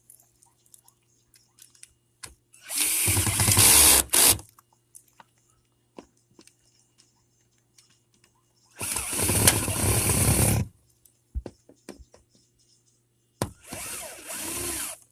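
Power drill driving screws in three short runs of one to two seconds each, the last one quieter, with small clicks between them as the third brake light's two mounting screws are run in and snugged tight.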